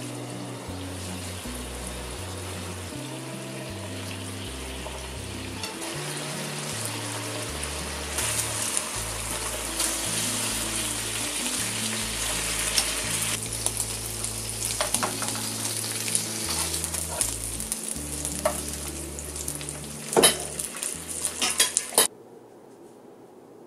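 Marinated beef short ribs sizzling in a hot frying pan, the sizzle growing louder about eight seconds in. Near the end come a few sharp clicks of tongs against the pan as the pieces are turned, and the sound then cuts off suddenly.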